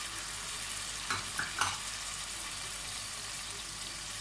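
Golden-brown onions with ginger-garlic paste and chili sauce sizzling steadily in hot oil in an aluminium pot while a wooden spatula stirs. Three short knocks come about a second in.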